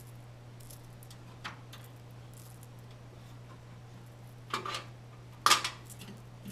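Light clicks and small metallic clatter of screws, a screwdriver and computer parts being handled, with a sharper clatter about five and a half seconds in, over a steady low hum.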